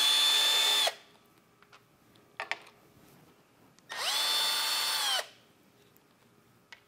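Cordless drill/driver with a 5/16" socket backing out two #10 self-tapping screws from a steel plate: two short runs of the motor, about a second each, the second starting about four seconds in, each spinning up and winding down.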